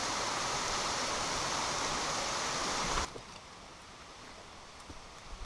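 Steady rushing of a mountain stream that cuts off abruptly about three seconds in, leaving a much quieter outdoor background with a few faint ticks.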